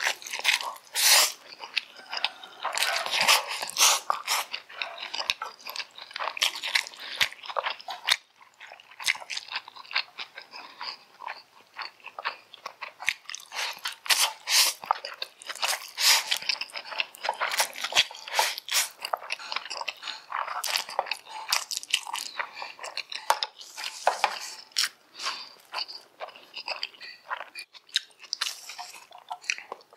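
Close-miked slurping and wet chewing of black bean noodles, in quick irregular bursts.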